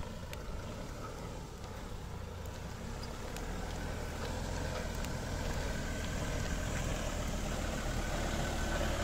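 Ford Ranger pickup's engine running at low speed as it crawls up a gravel track, growing steadily louder as it draws near.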